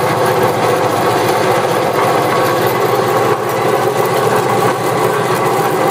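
Vectrax 7" x 12" horizontal bandsaw running steadily, its 1 hp 115 V motor driving the blade through a belt and pulleys. The pulley shaft is very slightly bent, which makes the drive wobble a little, and the belt and pulleys need adjustment.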